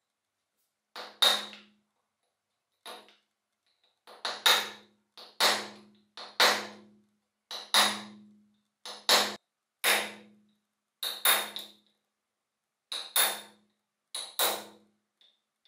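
Hammer striking a steel pin punch to drive a rusted pin out of an antique pneumatic nailer's metal body: sharp metallic strikes, mostly in quick pairs, roughly one pair a second, each ringing briefly.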